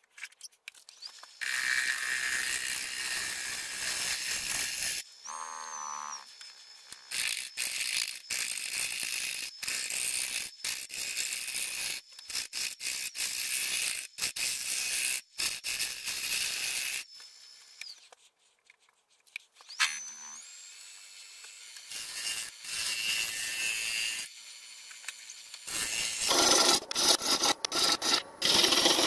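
A turning tool cutting the outside of a fruitwood bowl blank spinning on a wood lathe: a hissing, scraping cut that starts and stops in stretches of a few seconds. A high whine rises and holds twice in the gaps between cuts.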